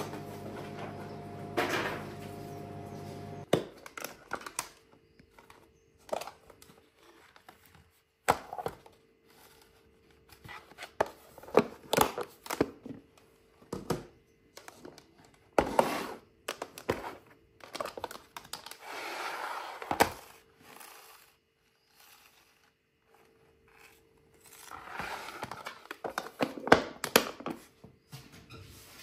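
Scattered knocks, clicks and rustling of things being handled, with two longer stretches of rustling. A steady hum at the start stops about three and a half seconds in.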